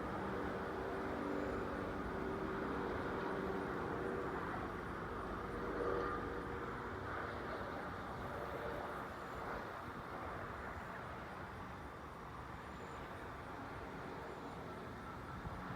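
Steady rumble of distant highway traffic, with a faint hum that swells briefly about six seconds in.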